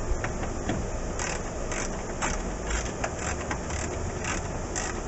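Ratchet wrench tightening bolts: short rasps of ratchet clicks about twice a second, one for each back-swing of the handle.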